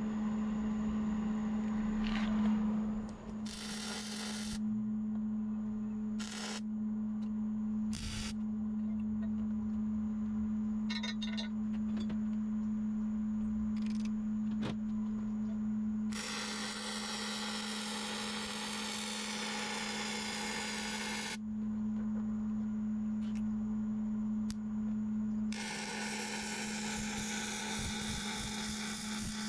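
Steady electrical hum, broken by bursts of welding crackle as the mower's mounting bracket is welded: a few short bursts, then two longer runs of about five seconds each, in the middle and near the end.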